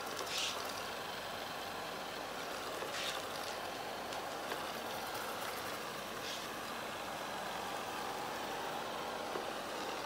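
Robot vacuum cleaner running across a parquet floor, a steady whirring hum of its suction motor and brushes, with a brief higher hiss three times.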